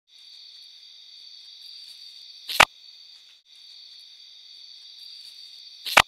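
Two sharp, loud knocks a little over three seconds apart, over a steady high buzzing chorus of night insects that breaks off briefly between them. The uploader says the knock sounds like a tree knock but could be an electronic anomaly.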